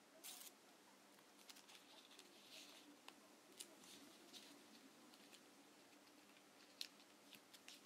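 Faint rustling and crinkling of origami paper as it is folded and creased by hand, with scattered soft ticks.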